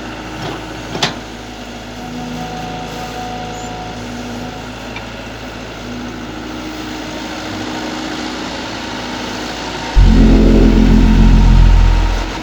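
Mini excavator's engine running steadily, with a sharp click about a second in. About ten seconds in, a much louder, deep drone takes over for about two seconds, then drops back.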